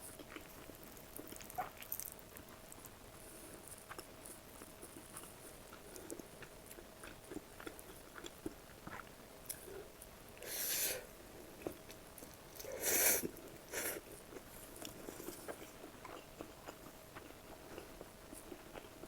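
Close-miked eating sounds: steady chewing with many small wet mouth clicks, and two louder, noisier bites or mouthfuls of under a second each, near the middle.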